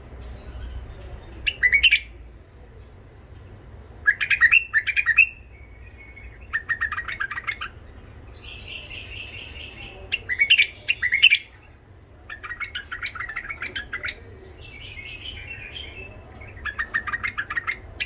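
White-eared bulbul singing in a rough voice: about seven short bursts of rapid, chattering notes, one or two seconds apart, with one steadier, higher trill near the middle.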